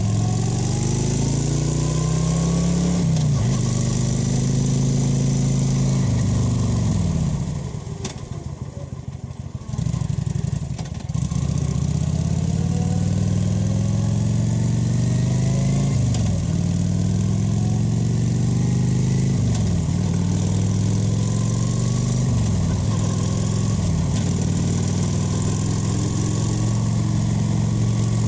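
Kawasaki VN 900's V-twin engine running under way, its pitch climbing and then dropping back sharply several times as it changes gear. About eight seconds in it goes quieter for a couple of seconds as the throttle eases off, then picks up again.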